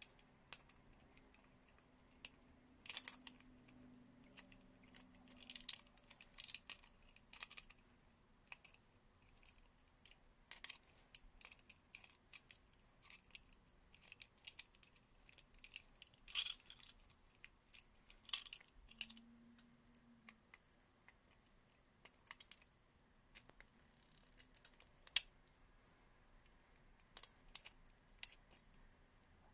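Sparse, irregular light clicks and small metallic taps of tools and parts being handled, typical of taking apart an old pressed-steel Tonka toy truck, with a brief low hum about two-thirds in.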